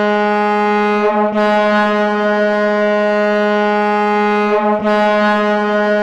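Ice hockey goal horn blowing one long steady blast at a single pitch, dipping briefly twice, about a second in and near five seconds.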